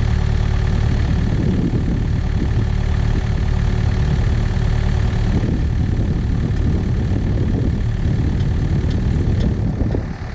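Takeuchi excavator's diesel engine running steadily, with a thin steady whine over it that stops about halfway through.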